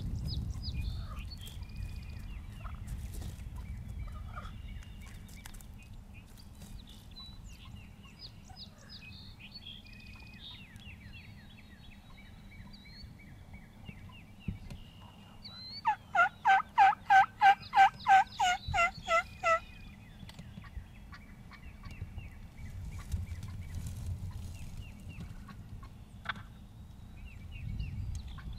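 Turkey yelping: a loud run of about a dozen yelps, roughly three a second, lasting about three and a half seconds just past the middle. Faint small-bird chirps come before it.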